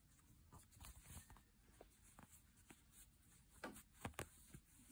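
Faint rustling and light ticks of yarn and a tapestry needle being handled, as the needle carrying a tail end is worked through crocheted stitches. Two sharper ticks come near the end.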